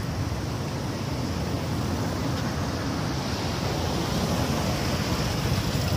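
Steady outdoor rushing noise, heaviest in the low end, with no distinct events.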